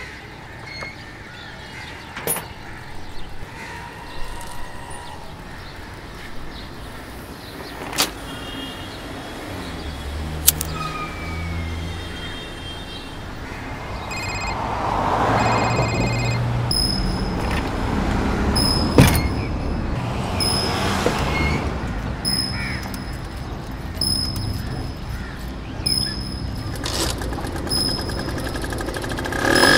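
Road traffic ambience with vehicles swelling past twice in the middle. Short high beeping tones come in groups and then repeat evenly through the second half, over scattered sharp clicks and knocks.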